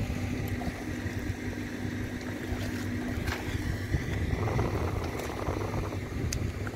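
Distant boat engine running steadily on the river, a continuous low drone.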